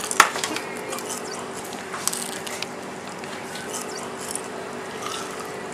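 Close-up chewing and crunching of crispy fried chicken skin: wet mouth sounds with scattered sharp crackles, the sharpest just after the start. A steady faint hum sits underneath.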